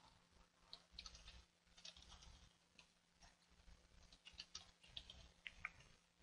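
Faint computer keyboard typing: a run of irregular keystrokes.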